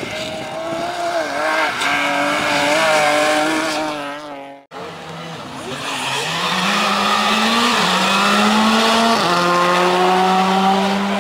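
Rally car engines at full throttle. A BMW E30 rally car revs up and down through a corner and cuts off abruptly about halfway in. Then a Skoda Fabia R5's turbo four-cylinder accelerates past, its pitch climbing and dropping back at each upshift.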